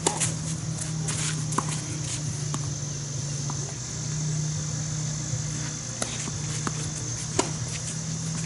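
Tennis ball struck by rackets in a rally: a sharp crack right at the start, then several fainter hits spaced a second or more apart. Under the hits runs a steady high insect buzz and a low steady hum.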